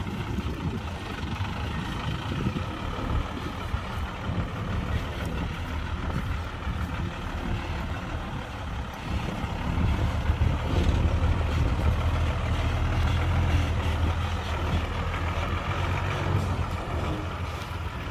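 Diesel engine of heavy earthmoving machinery running, a steady low rumble that grows louder under load from about halfway through for several seconds, then eases back.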